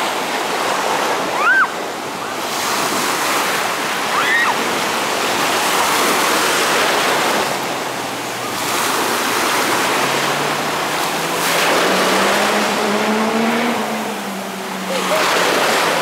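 Sea surf: small waves breaking and water rushing all around, swelling and easing every few seconds. In the second half a low hum slowly rises and then falls in pitch underneath.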